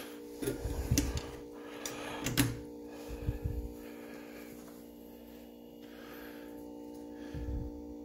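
Refrigerator compressor running, a steady low hum of several tones, while it charges the can crusher's air tank. A few soft knocks in the first three seconds and another near the end.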